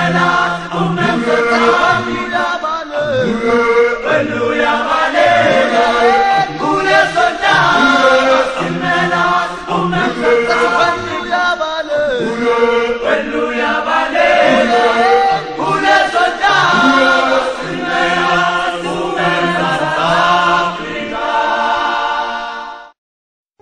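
Traditional Zulu choral chanting by a group of voices, cutting off abruptly shortly before the end.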